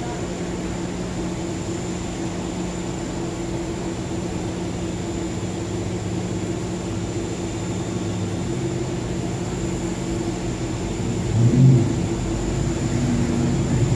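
Steady machinery drone with a few even low tones and a faint high whine, like an engine or pump running. Near the end it briefly swells louder.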